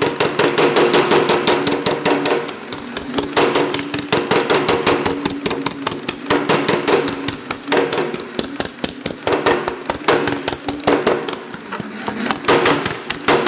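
Baileigh Gerisch Design MH-37HD power hammer with shrinking dies striking a sheet-metal panel in a rapid, even run of blows, the stroke speed held by its VFD foot pedal while the panel is shrunk.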